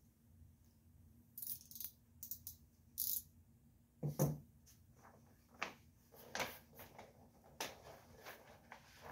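Hand tools and window-tint film being handled at a work table: scattered short metallic clinks, rattles and rustles, with a sharp knock about four seconds in that is the loudest sound. A faint steady low hum lies underneath.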